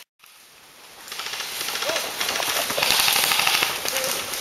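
Airsoft guns firing, a dense run of rapid cracks over a hiss of movement noise. The sound builds up about a second in after a brief gap, and there are faint shouts about two and four seconds in.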